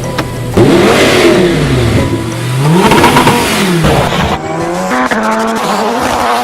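Audi R8 with an iPE Innotech sports exhaust, revved up and back down twice, then holding a steadier, slowly rising note near the end.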